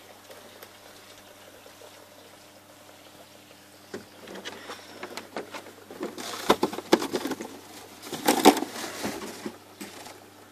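Hand working in a pond filter chamber among its brushes and filter media: scattered knocks and rustling with some water splashing, busiest and loudest from about six to nine seconds in, over a faint steady hum.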